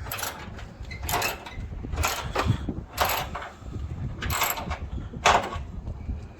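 A hand ratchet wrench worked in short strokes, tightening the hood bolts: about six clicking strokes, roughly a second apart.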